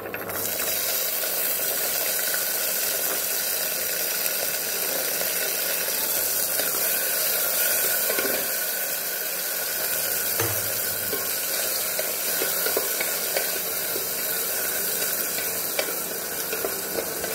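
Green peas, cashews and whole spices sizzling in hot ghee in an aluminium pressure cooker, a steady frying hiss, stirred with a wooden spatula that gives occasional light scrapes and taps against the pot.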